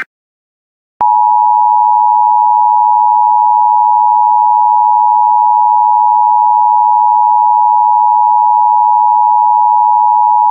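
Emergency alert attention tone, NOAA Weather Radio's 1050 Hz warning alarm tone: a single loud, steady high tone that starts about a second in and holds without change, announcing a new emergency message.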